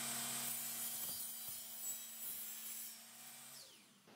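DeWalt sliding compound miter saw running at full speed as its blade cuts through a length of aluminium track. A little before the end the motor is released and spins down with a falling whine.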